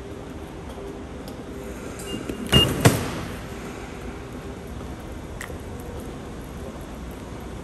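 Automatic subway ticket gate sounding a short high beep as an IC card is read, about two and a half seconds in, with two sharp clacks right after, over the steady hum of the station concourse.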